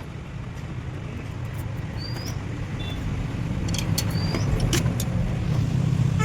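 A car engine running steadily with a low rumble that grows slightly louder. A short rising chirp repeats about every two seconds, and a few sharp clicks come a little past the middle.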